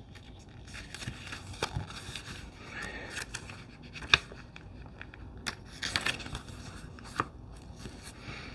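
Paper rustling as the pages of a tarot deck's small guidebook are turned and handled, with a few sharp light clicks in the second half.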